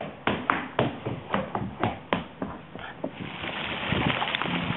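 Irregular sharp taps, about three a second, of a crawling baby's hands slapping a hardwood floor. About three seconds in they give way to a steady hiss of water spray from splash-pad jets.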